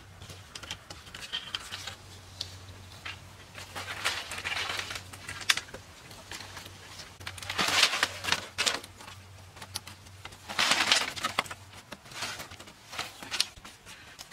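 Dry bamboo poles and slats clicking and knocking against each other as they are handled and lashed to a frame, with three longer rattling clatters, the loudest about eight seconds in.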